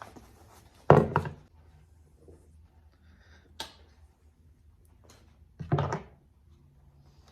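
Plastic console trim and shift-boot retainer handled and pressed back into place: two bursts of knocking and rubbing, about a second in and again near six seconds, with a single sharp click between them.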